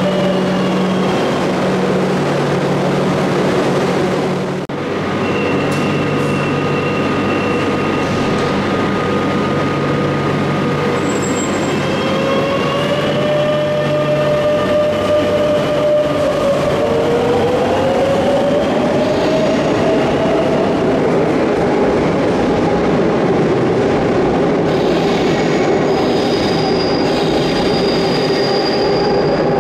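Metro de Madrid Line 10 train running through the station: a steady loud rumble with several high, steady tones over it. About sixteen seconds in, a whine rises in pitch for a few seconds and then holds as the train picks up speed.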